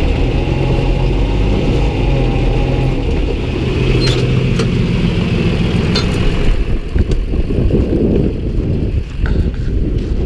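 Tractor engine running steadily. About six seconds in, the sound turns rougher and noisier, with a few sharp clicks.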